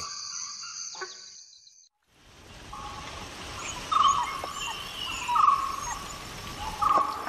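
Crickets trilling, fading out about two seconds in. Then a dhole pup cries with short clear whistles, each holding one pitch and dropping at the end, about every second and a half.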